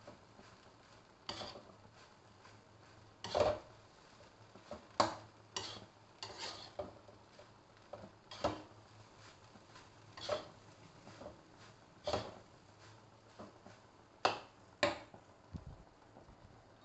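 Spatula scraping and knocking against a wok while stir-frying fried rice: irregular strokes about once a second.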